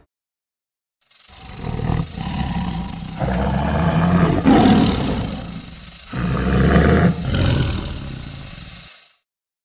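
Fictional monster roar sound effect for the creature Ammit: a rough, deep roar that starts about a second in and comes in several swells, loudest near the middle, before cutting off shortly before the end.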